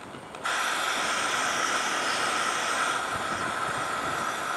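Petrol-burning Shmel-2 primus stove's burner running at a high flame with a steady, hissing burn. It dips briefly right at the start, then comes back at full strength.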